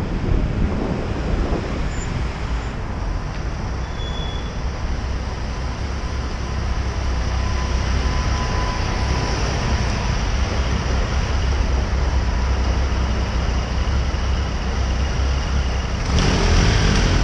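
Road traffic noise picked up by a camera on a moving bicycle: a steady low rumble of passing cars and vans.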